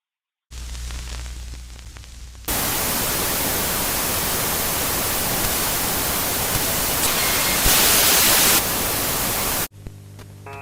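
Loud steady white-noise static: a low hum with faint hiss gives way, about two and a half seconds in, to a full, even hiss that gets brighter for about a second near the end and then cuts off abruptly, leaving a quieter hum.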